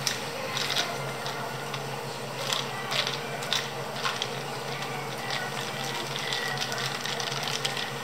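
Ice cubes clinking and knocking against a drinking glass as an iced dalgona latte is stirred with a straw. The clinks come at irregular spacing, a few each second, some louder than others.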